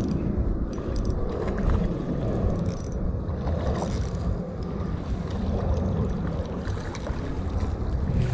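Steady wind rumble buffeting the microphone.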